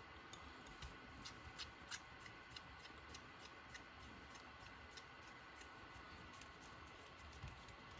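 Faint, scattered small clicks and ticks of fingers handling the tiny plastic and metal steering parts of an Axial SCX24 micro crawler as the old steering links are worked off, most of them in the first half.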